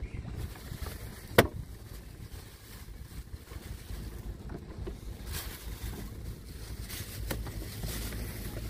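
Wind buffeting the microphone over a small wooden boat on a flowing river, with water moving against the hull and a single sharp knock about a second and a half in.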